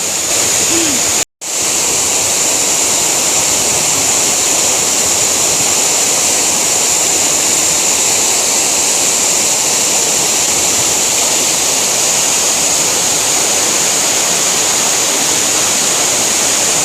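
A large waterfall pouring: a loud, steady rush of falling water, with a brief dropout in the sound about a second in.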